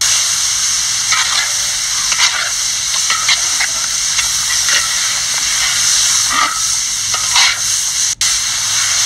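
Chopped goat meat and cabbage sizzling as they fry in a wok, with a metal spatula stirring and scraping through them every so often.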